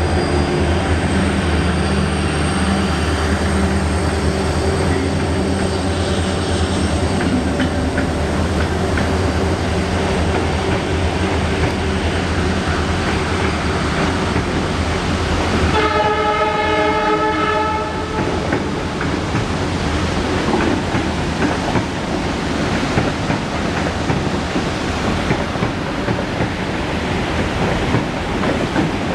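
Four WDG4 (EMD GT46MAC) diesel-electric locomotives passing slowly, their two-stroke engines droning steadily; a locomotive horn sounds for about two seconds just past halfway. After it, the rumble and clatter of freight wagon wheels on the rails take over.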